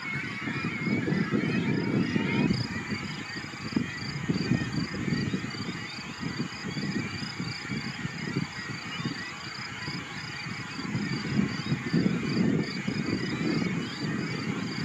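Wind rumbling on the microphone in gusts, with faint bird calls and a steady high chirping repeating about four times a second.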